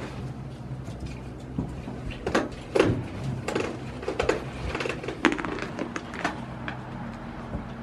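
Goats moving about on a straw-bedded barn floor: a series of short knocks and rustles over a steady low hum.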